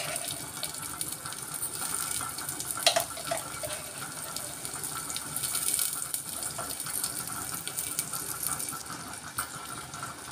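Chopped onions frying in hot oil in a clay pot, a steady sizzling hiss, with one sharp click about three seconds in.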